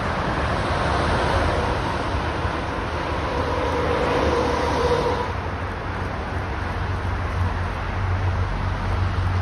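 Steady highway traffic noise from cars and trucks passing, with a heavy truck going by about four seconds in. A low rumble builds near the end as a train approaches on the tracks alongside.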